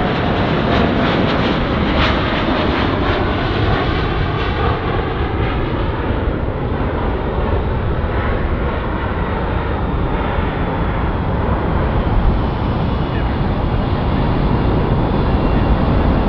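Boeing 787 Dreamliner's twin jet engines at takeoff power as it climbs out overhead: a loud, steady jet roar with deep rumble. After about five seconds the high hiss softens as the plane draws away.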